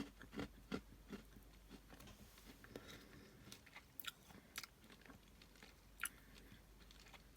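Faint close chewing of a piece of blue clay: a few soft, quick bites in the first second, then a handful of sharp gritty crackles. The sand in the clay is squeaking on the teeth.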